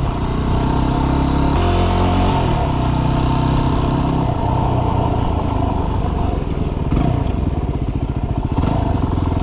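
Yamaha WR250R dual-sport motorcycle's single-cylinder engine running as it is ridden, its note stepping up and down a couple of times in the first few seconds, then running lower with a pulsing beat.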